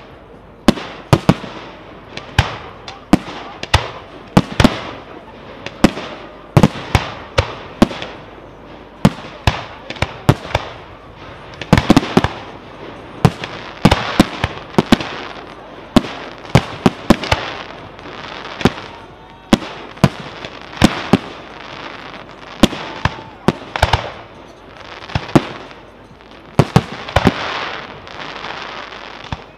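Aerial firework shells launching and bursting in a rapid series of sharp bangs, about one to two a second, with a noisy wash between the bangs.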